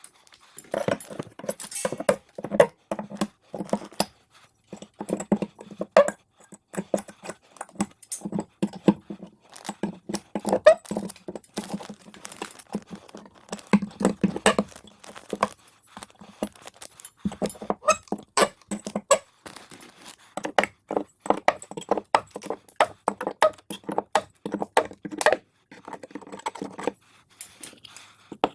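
Irregular runs of sharp clicks, taps and knocks, the clatter of carpentry tools and hardware being handled and worked, coming in bursts of a few seconds with short pauses between.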